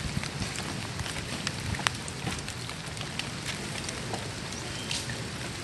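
Steady rain falling, with many single drops ticking sharply on hard surfaces.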